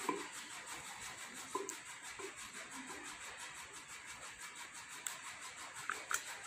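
Wooden masher pressing chopped saag greens down into a clay pot: faint soft rubbing and scraping, with a few light knocks and a couple of small clicks near the end.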